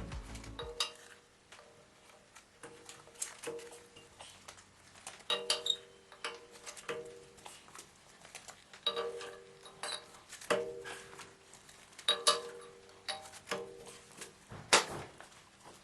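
Scattered metallic clinks and knocks, each with a short ringing tone, as engine parts and tools are handled and set down on the engine block. The hits come irregularly, a few at a time, and one sharp knock near the end is the loudest.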